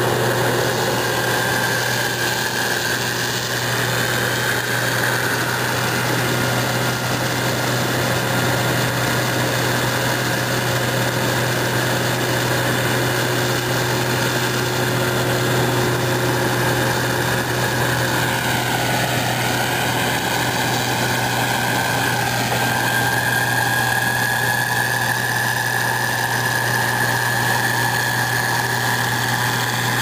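Combine harvester running at working speed while cutting soybeans: a steady, loud engine drone with a high machinery whine over it. The whine sags briefly twice in the second half.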